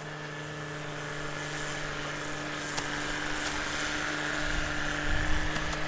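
A machine running steadily: a low hum with steady tones and a higher whine that swells around the middle. Low rumbling comes in near the end.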